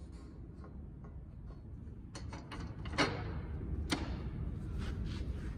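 A few sharp clicks and light taps, the two loudest about three and four seconds in, as a thin stainless steel inlay is set into its routed recess in a white oak door for a test fit, over a low steady rumble.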